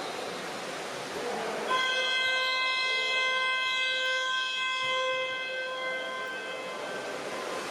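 Electronic game horn at a water polo match sounding one long steady buzz. It starts about two seconds in, holds at one pitch for about four to five seconds, then stops, over the hiss of a noisy pool hall.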